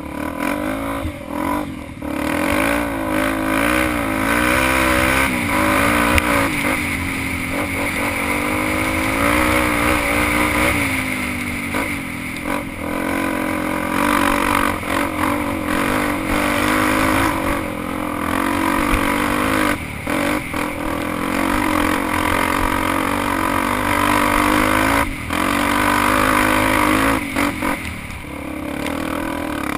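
Trail motorcycle's engine revving up and down with the throttle, easing off briefly a few times.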